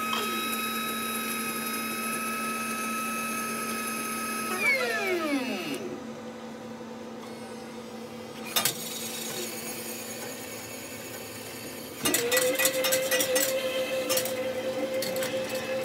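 Smoothie vending machine's built-in blender motor running at a steady pitch, then spinning down with a falling whine about five seconds in. A single sharp click follows a few seconds later. Near the end the machine starts up again with a steady hum and a rattle of rapid clicks.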